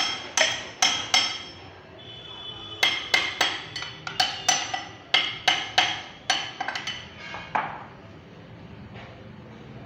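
Metal hand tool clinking against the metal of a tractor engine under repair: sharp ringing clinks about three a second, a short run at the start and a longer run after a brief pause, ending about two seconds before the end.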